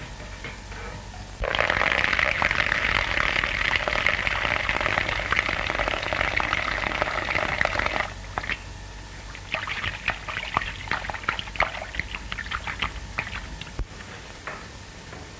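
Water pouring from a water cooler's spigot into a hat on the floor. It starts suddenly, runs steadily for about six seconds and cuts off sharply, then gives way to scattered small drips.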